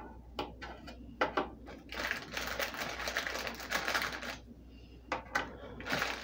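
Ritz crackers being set down one by one on a parchment-lined metal baking sheet: light scattered clicks and taps, with rustling from the opened cracker sleeve in between.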